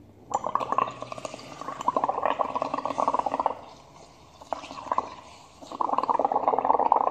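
Blowing through a drinking straw into a cup of watery red paint, a rapid bubbling in two long bouts with a brief burst between them.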